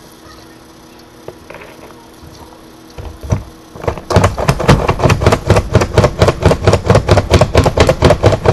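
Pampered Chef plunger-style food chopper being pumped to chop pecans. A few separate knocks come first, then about four seconds in a rapid, steady run of clacks begins, about five a second.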